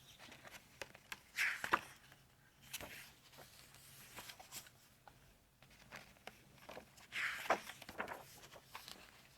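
Paper pages of a book being handled and turned: two rustling swishes, each ending in a sharp snap, with lighter clicks and rubs between.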